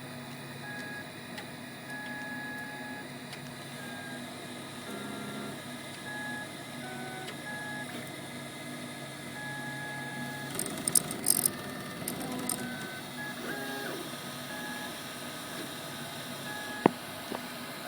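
MakerBot Replicator 2 3D printer printing: its stepper motors sing in short steady tones that keep jumping in pitch as the head moves. About eleven seconds in there is a brief cluster of sharp crackling clicks, and there is one sharp click near the end.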